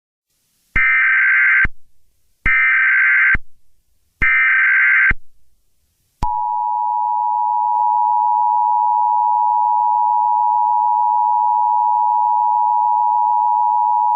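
Emergency Alert System SAME header: three data bursts of warbling tones, each about a second long, then the EAS two-tone attention signal, which starts about six seconds in and holds steady. Together they mark the start of a new emergency alert message.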